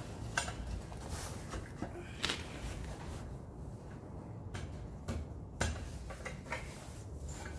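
A handful of scattered light knocks and clicks from wooden boards and tools being handled while building a wooden door.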